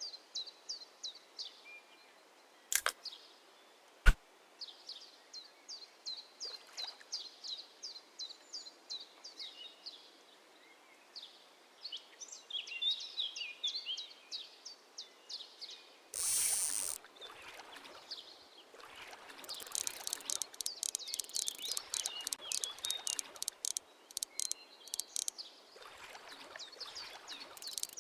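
Small birds chirping in quick repeated phrases, outdoors by the water. Two sharp clicks come about 3 and 4 seconds in, the second the loudest sound, and a short rush of noise comes about midway.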